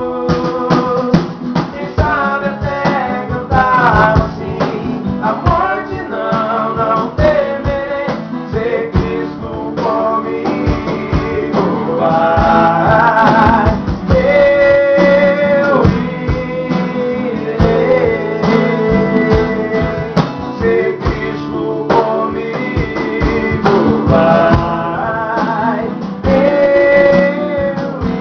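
A missionary hymn sung in Portuguese with guitar accompaniment: a sung melody over steady strummed chords.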